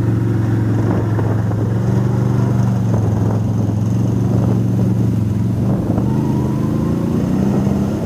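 ATV engines: one idling steadily close by, while a second ATV drives past and on up the trail, its engine note shifting and rising about six seconds in.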